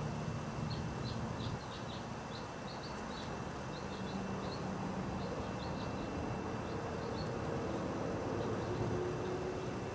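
Outdoor ambience: a quick run of short, high chirps through the first half, over a low steady hum of distant traffic.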